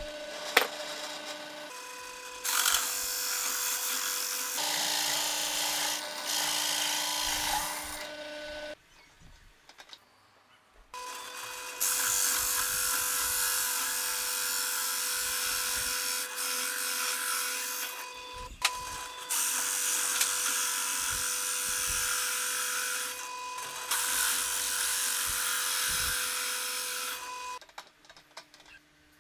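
Bench drill press running with a hole saw cutting through plywood: a rasping cut over the motor's steady hum, in two long passes with a short pause between them as the next circle is lined up.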